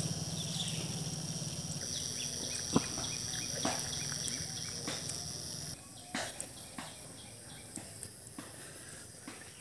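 Small DC submersible water pump running with a steady low hum and a faint high whine. The hum stops about six seconds in, leaving faint outdoor ambience with scattered ticks and chirps.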